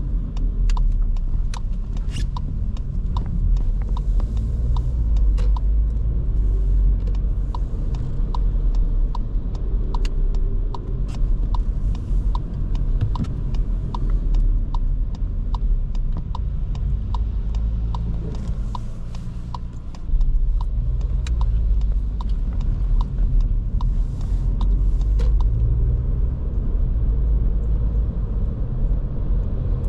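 A 2023 Škoda Kamiq 1.0 TSI driving in town, heard from the cabin: a low, steady rumble of its three-cylinder turbo petrol engine and tyres on the road. A light ticking repeats about one and a half times a second through much of it. The sound eases off briefly about two-thirds of the way in, then rises sharply again.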